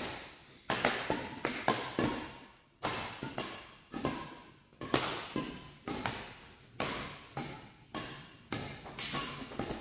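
Badminton rackets striking a shuttlecock in a fast doubles rally: sharp smacks about every half second to a second, each echoing briefly in a large hall.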